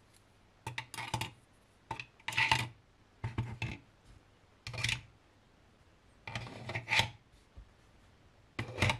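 Pens and small tools clattering and scraping against the hard plastic walls of a 3D-printed desk organizer as they are dropped in one by one, in a series of short bursts.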